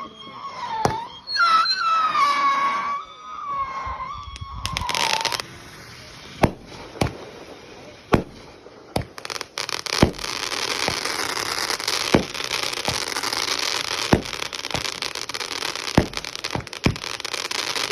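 Fireworks going off. A wavering high whistle lasts for about the first five seconds, then comes a loud hiss. After that there are sharp bangs every second or so over a steady crackle.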